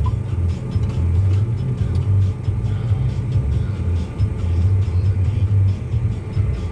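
Farm tractor engine running with a steady low drone, with background music over it.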